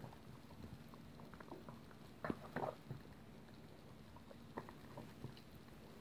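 Border Terrier eating chunks of raw beef liver off a plate: faint, irregular chewing and smacking, with a cluster of louder bites about two and a half seconds in.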